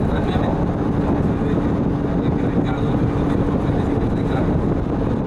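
Steady engine and road noise inside a transit bus cruising at highway speed, with a steady hum running underneath.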